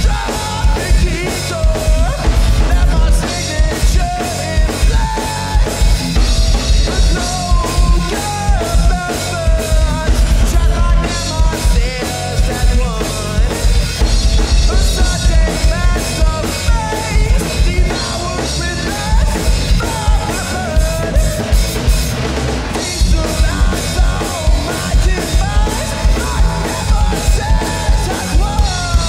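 Rock band playing loud and continuously, with a pounding drum kit (kick and snare), electric bass and a wavering melody line on top.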